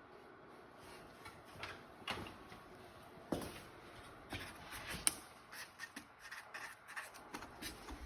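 Faint scratching and tapping of a pen writing by hand, in short irregular strokes with a few sharper clicks.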